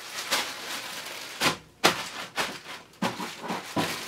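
Plastic packaging and a plastic mailer bag rustling and crinkling as items are handled and unwrapped, in irregular bursts, with a sharp knock a little under two seconds in.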